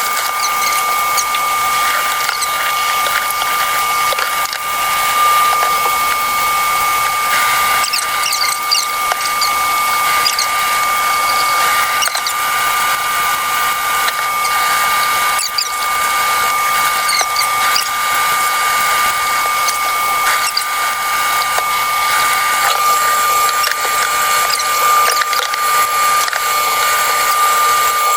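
A small handheld electric device runs without a break, giving a steady high whine over a hiss, used to clean food out of a soaked doll's mouth.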